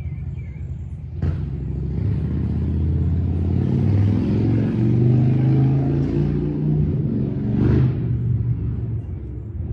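A motor vehicle's engine running with a low hum that swells through the middle and fades near the end. There is a sharp knock about a second in and another near the end.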